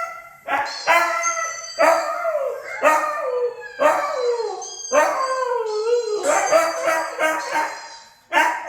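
Husky howling in a string of short calls, about one a second, each one starting suddenly and sliding down in pitch.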